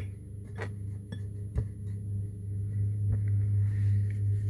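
Light knocks and clinks against a glass mixing bowl as cookie dough is scooped out by hand, four short knocks in all, over a steady low hum.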